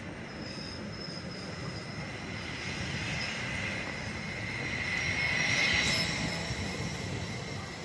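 Leo Express Stadler FLIRT electric multiple unit rolling along the platform: a steady rumble of wheels on rail under a high, thin whine that grows louder to a peak about six seconds in.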